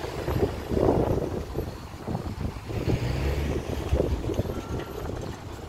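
Wind buffeting the microphone over a low rumble of engines.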